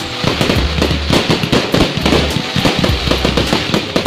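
Fireworks going off in a dense run of bangs and crackles, one after another, with music and a deep bass line playing underneath.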